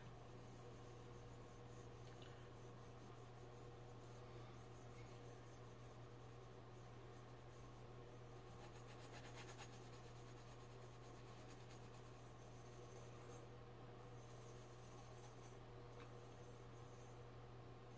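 Faint scratchy rubbing of an abrasive scrub sponge worked back and forth against a silver-plated metal goblet, with a steady low hum underneath.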